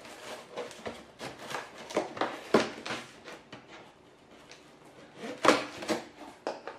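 Scissors cutting along the packing tape on a cardboard box, then the cardboard flaps being pulled open: irregular scraping and rustling strokes, loudest about two and a half seconds in and again near the end.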